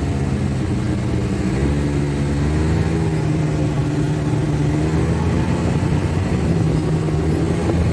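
Snowmobile engine running steadily while riding, heard from the seat, its pitch wavering slightly as the throttle shifts.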